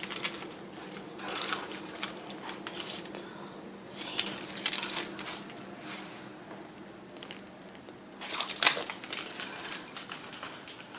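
Small metal objects clinking and rattling in several short bursts, the loudest about eight and a half seconds in, over a faint steady hum.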